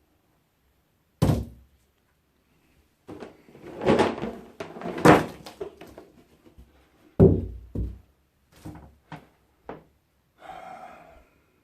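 Scrap items being handled: a string of separate thuds and knocks, with one about a second in, a louder cluster a few seconds in, several more after, and a short rustle near the end.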